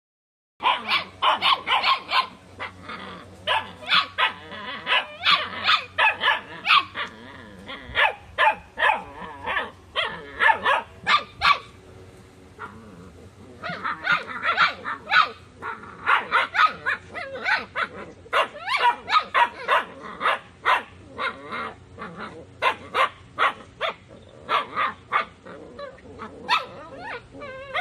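Young Taiwan dog puppy, about two months old, barking in quick runs of short barks, with a break of a second or so about halfway through.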